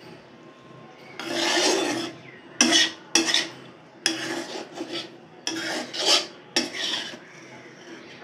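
A flat metal spatula scraping and stirring vegetables around a metal kadhai: one long scrape, then a run of shorter, quicker scrapes of metal on metal.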